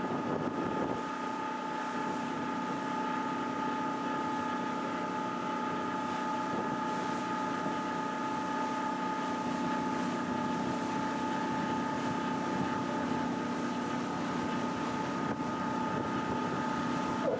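Cruise boat's engines running steadily under way: a constant hum with several held tones, under a hiss of wind over the microphone.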